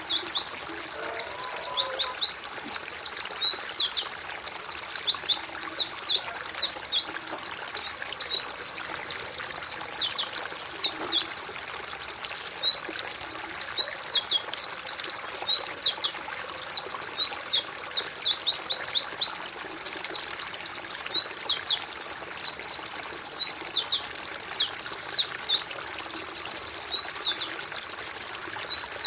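A flock of white-eyes (pleci) chirping in quick, high, thin notes that overlap in a dense, continuous chorus, over a steady trickle of water.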